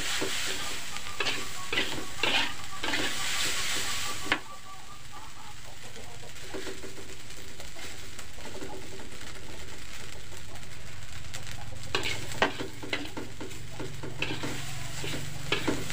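Fried rice sizzling in a large aluminium wok while a metal spatula scrapes and tosses it, on a turned-up flame as the rice nears done. The sizzle is loudest for the first few seconds and drops suddenly about four seconds in; the spatula strokes come in spells near the start and again near the end.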